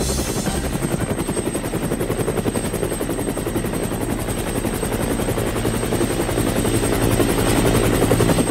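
Helicopter rotor sound effect: a fast, steady chop that grows a little louder near the end.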